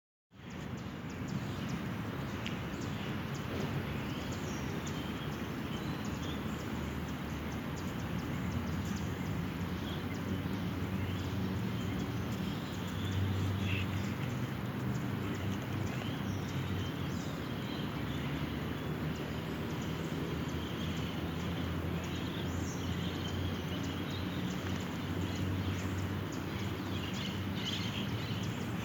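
Steady outdoor background noise with a low rumble, and faint short high sounds now and then.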